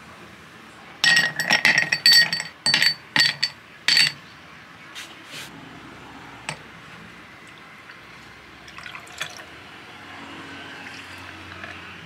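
Ice cubes clinking against a tall drinking glass in a quick run of sharp, ringing clinks. Near the end, milk is poured from a measuring jug over iced coffee in the glass: a soft, steady pouring splash.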